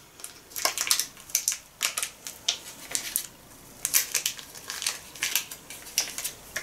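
Plastic wrapper of date paste crinkling and crackling by hand as the paste is squeezed and peeled out of it, in a quick irregular series of crackles.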